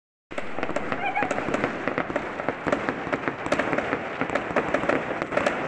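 Many fireworks and firecrackers going off at once, a dense, continuous crackle of overlapping bangs with no single burst standing out.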